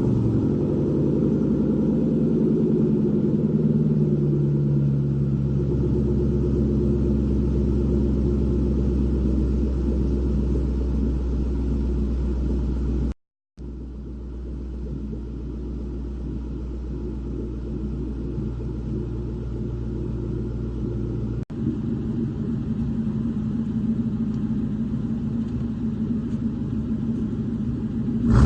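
2001 Mustang GT's 4.6-litre V8 running through an off-road X-pipe exhaust, its speed easing down to idle over the first few seconds and then idling steadily. The sound cuts out abruptly about halfway through and again briefly about 21 seconds in, each time picking up with the engine still idling.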